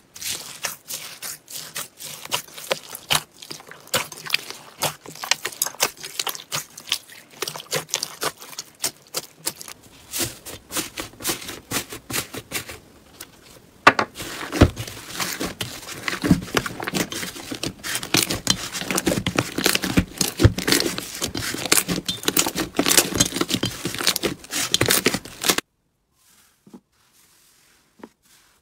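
Hands squeezing and pressing crunchy slime: a dense run of crisp crackles and clicks, first from a bowl of bead-filled clear slime, then louder and denser from a blue slime with a dried, cracking top layer. The crackling cuts off suddenly near the end, leaving only a few faint squishes.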